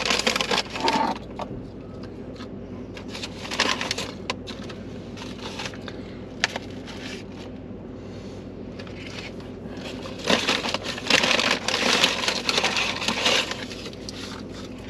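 Paper takeout bags and food wrappers rustling and crinkling in bursts as fast food is unpacked, the longest stretch near the end, with one sharp click in the middle.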